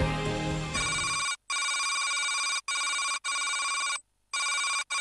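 Electronic ringing-tone sound effect: a steady, buzzy, telephone-like tone at one pitch, switching on and off in uneven stretches with abrupt short gaps. It comes in about a second in, as background music fades out.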